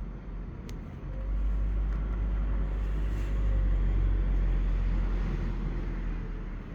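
A motor vehicle passing by: a low rumble that comes in about a second in, swells to its loudest midway and fades near the end.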